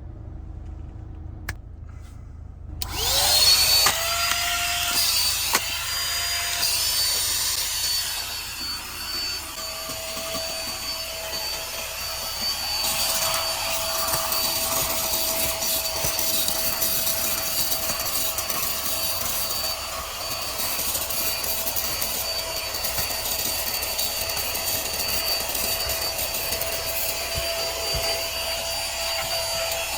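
Small cordless handheld car vacuum cleaner switched on about three seconds in, its motor spinning up to a steady high whine over the hiss of air, with a couple of brief dips early on before it settles and runs evenly.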